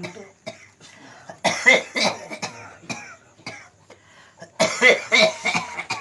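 A man coughing in two hard fits of about a second each, the first about a second and a half in and the second near the end; it is the chronic cough he has had for over two years.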